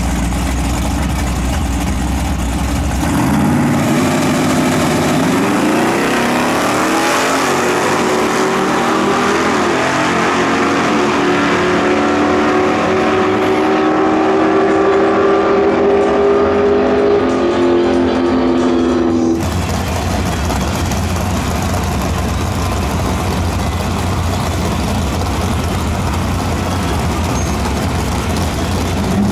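Chevrolet Chevelle and Camaro drag cars idling at the start line, then launching about three seconds in; the engines climb in pitch under full throttle as they run down the strip. A sudden cut near two-thirds of the way through brings back a steady low idle from the next pair of cars waiting to race.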